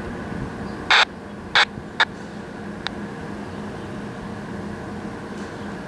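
Four short, harsh bird calls within about two seconds, the last one faint, over a steady background hum.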